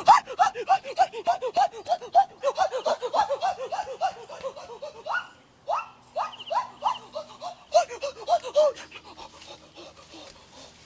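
A person panting hard, short voiced breaths about four or five a second, the heavy breathing of someone running. The breaths thin out and fade near the end.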